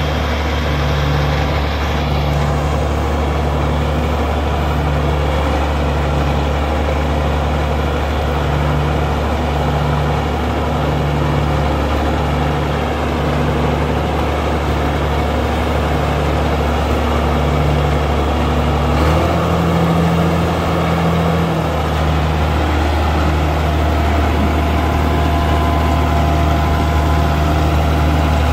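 Steiger articulated four-wheel-drive tractor's diesel engine running steadily, with a slow throb of about one beat a second. About two-thirds of the way through, the engine note shifts up for a few seconds, then settles again.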